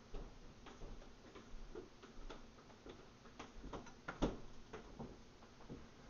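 Irregular light clicks and taps, with one sharper knock about four seconds in: a small bird feeding on a seed-feeder tray, pecking at seed and shifting its feet.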